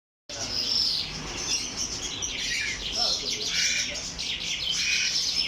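Songbirds chirping and singing, many short calls and trills overlapping.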